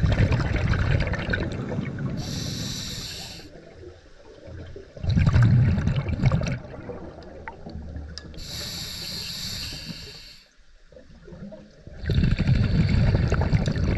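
Scuba diver breathing underwater through a regulator: a hissing inhalation through the demand valve alternating with a loud rush of exhaled bubbles, a breath about every six seconds.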